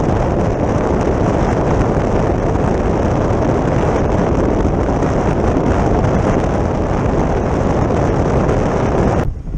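Wind rushing over the camera microphone on the deck of a moving ferry, a steady, dense roar with no distinct tones. It cuts off suddenly just before the end.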